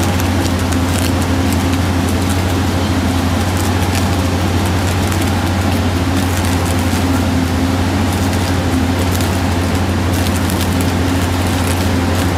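Mobile flash butt rail welder flashing a rail joint: a loud, steady low hum with irregular crackling from the sparking joint.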